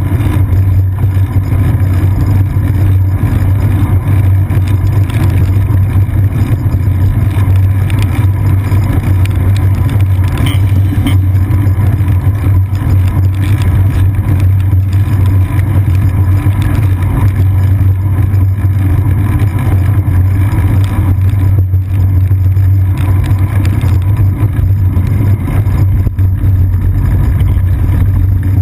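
Steady loud low rumble of a bicycle rolling along a wet paved path, heard through a GoPro Hero 2 clamped to the seat post in its housing: tyre, road-vibration and wind noise.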